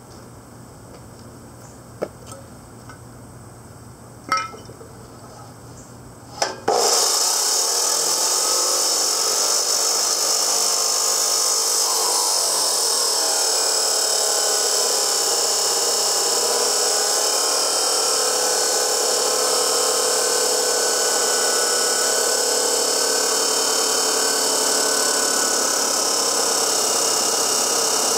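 A few light knocks, then about seven seconds in a Dewalt D28710 14-inch abrasive chop saw starts and runs steadily under load, its wheel grinding through 1/8-inch-wall, 3-inch square steel tubing.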